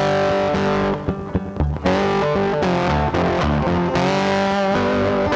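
Rock music with distorted electric guitar, thinning out briefly about a second in.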